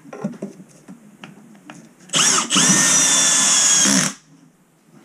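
A few light knocks as a Tapcon screw is set in a plastic toilet flange, then a cordless drill drives it into the concrete floor beneath: a short burst, a brief stop, and a longer run of about a second and a half with a motor whine that rises, holds steady, and cuts off.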